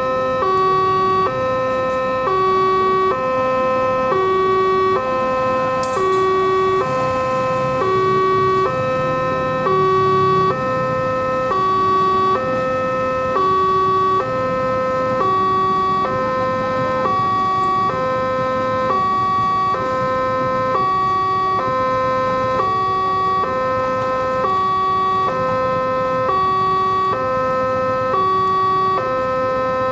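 Railway level-crossing warning alarm sounding continuously, an electronic two-tone signal stepping high-low over and over at an even pace.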